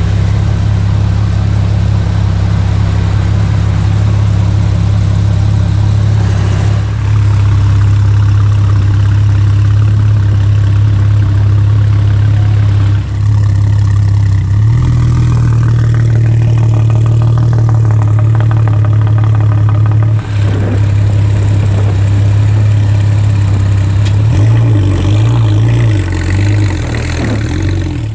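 TechArt Cayman GT Sport's 3.8-litre flat-six idling loudly through its TechArt exhaust with a steady, deep note. The idle steps slightly higher about halfway through, and the note turns uneven and pulsing in the last few seconds.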